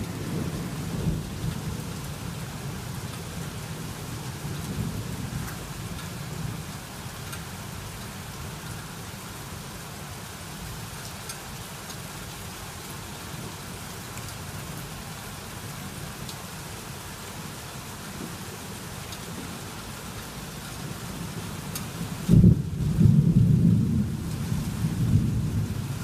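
Thunderstorm: steady rain throughout, with a low thunder rumble dying away over the first few seconds. About 22 seconds in, a sudden thunderclap breaks into loud, low rumbling thunder.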